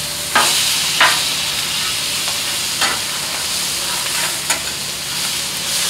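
Pork chops and fried rice sizzling on a hot Blackstone steel griddle while a metal spatula flips the chops and scrapes the plate, with a few sharp clicks of the spatula against the steel.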